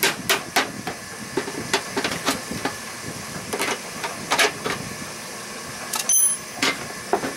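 Irregular sharp clicks and clinks of a screwdriver and needle-nose pliers working the steel hinge pin out of a plastic riding-mower chute deflector, over a steady hiss. The sound cuts out briefly about six seconds in.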